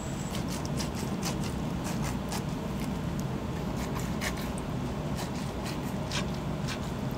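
Kitchen utensils clicking and scraping lightly and irregularly, about three small clicks a second, over a steady low hum of the kitchen.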